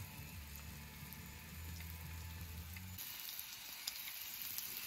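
Food frying and sizzling in a hot pan, a steady hiss with small crackles. A low hum underneath stops about three seconds in, and the sizzle turns brighter.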